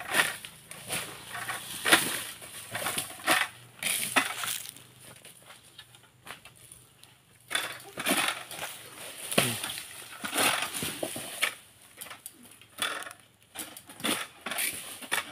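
Long-poled harvesting sickle (Camel King 111) pulled through the stalks of oil palm fronds: repeated crunching and crackling strokes as the blade cuts the fibrous frond bases. There is a quieter lull of a few seconds in the middle.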